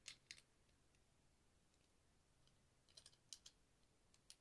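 Faint clicks of plastic Lego bricks being handled and pulled apart: a couple at the start, a cluster of several about three seconds in, and one more near the end.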